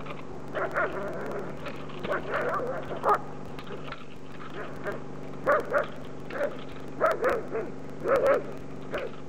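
Belgian Malinois barking in short, irregular bursts.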